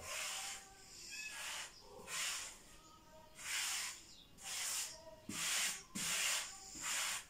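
Hands sweeping and rubbing flour across a wooden board: a series of soft swishes, about one a second.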